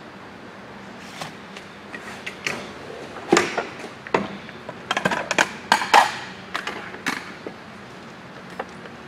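A series of irregular sharp clacks and knocks of tools and metal being handled, bunched in the middle, over a low steady shop hum.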